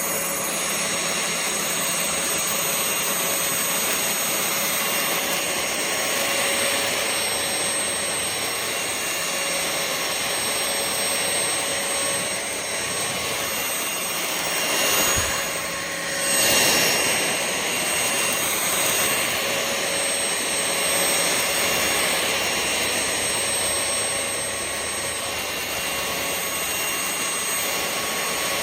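VersLife Z8 cordless stick vacuum running: a steady high-pitched whine over a rush of air, swelling briefly twice about halfway through.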